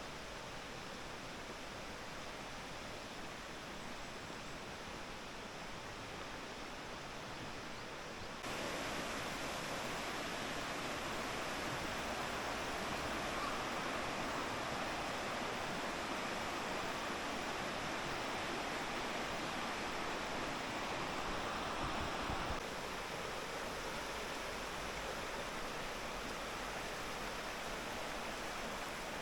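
Steady rush of stream water running over rocks. It turns abruptly louder about eight seconds in and drops back just as abruptly later on.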